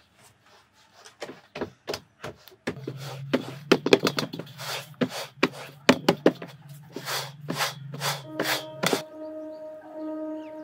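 Hands patting and slapping bhakri dough flat in a metal plate: quick, irregular pats, about three a second at their busiest. A held tone of background music comes in near the end.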